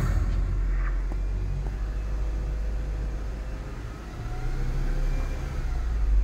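Mercedes-Benz C-Class engine idling in park, a steady low hum heard from inside the cabin, growing a little louder in the last couple of seconds.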